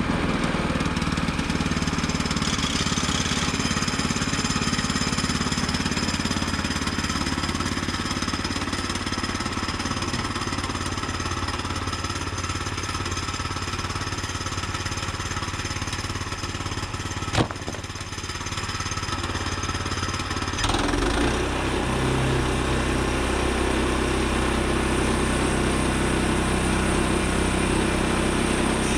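Gas engine of a Woodland Mills 122 portable band sawmill running steadily at speed while the band blade cuts through a cherry log. There is a single sharp click about 17 seconds in, and about 21 seconds in the sound turns suddenly heavier and lower.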